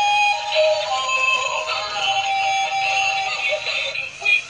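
Joy Duck Dance battery-powered dancing duck toy playing its song: an electronic melody with a synthetic singing voice, thin and without bass, with a brief break near the end.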